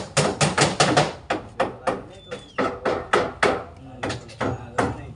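A rapid series of sharp knocking strikes, about five a second at first, then slower and uneven. A short high whistle sounds about two seconds in.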